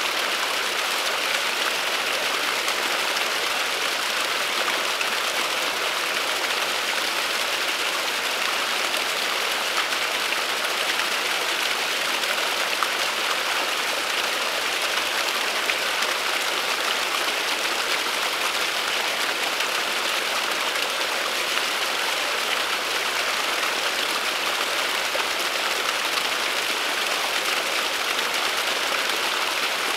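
Small waterfall falling down a bank, a steady, unchanging splash and hiss of running water.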